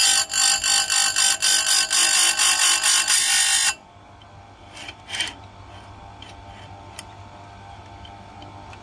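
Electric chainsaw-chain grinder's wheel grinding a cutter tooth: a loud, harsh, pulsing grind for nearly four seconds that stops abruptly as the wheel is lifted off the tooth. The grinder motor then keeps running with a steady hum, with a brief scrape about five seconds in and a light click near seven seconds.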